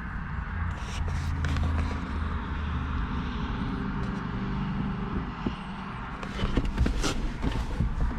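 Scattered clicks and scrapes of plastic mount parts being handled against a dashboard, over a low steady rumble. The clicks come in a cluster about a second in and again in a busier run near the end.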